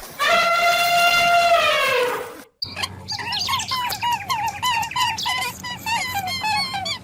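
A long, high bleat from a goat or sheep, falling at the end. After a brief cut comes a fast run of short squawking bird calls, about three a second.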